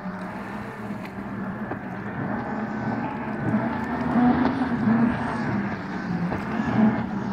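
Distant boat engine, a Mercedes OM606 straight-six turbodiesel with a Holset HX60 turbo, running under power and growing louder as the boat comes on.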